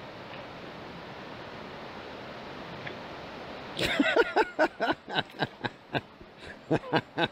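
River water running steadily. About four seconds in, a loud run of about a dozen short cries, each falling in pitch, comes in quick succession over some three seconds.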